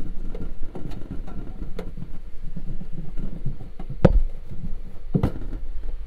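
Dry cloth rubbing and wiping the inside of a cabinet-type UV sterilizer: a continuous rough scrubbing with many small clicks. Two sharper knocks stand out, about four seconds in and again a second later.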